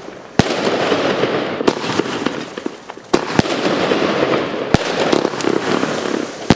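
Vulcan Speed of Sound 25-shot firework cake firing: about six sharp reports at uneven intervals, with a continuous hiss between them.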